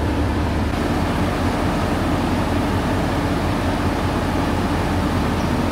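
Diesel train running close by as it pulls out, a loud steady engine drone with a low hum underneath.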